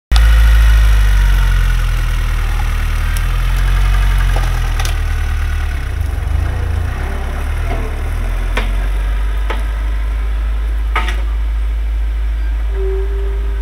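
Homemade tractor's engine running steadily as the tractor pulls away with its mounted plough, with a few sharp clanks over the engine noise.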